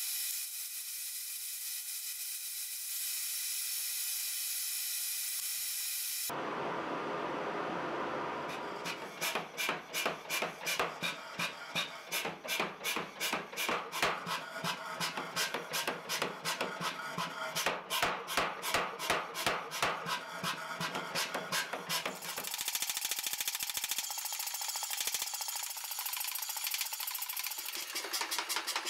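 A steady hiss for the first several seconds, then a power hammer striking a hot pattern-welded steel billet in a long, even run of blows, about three or four a second, which comes faster over the last several seconds.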